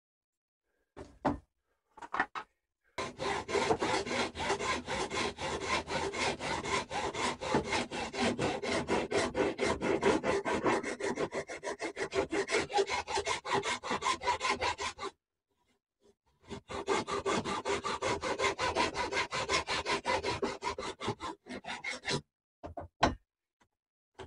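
A hand file rasping back and forth over a small piece of wood in quick, even strokes, several a second. It makes one long run, then stops briefly before a shorter second run, with a few single scrapes before and after.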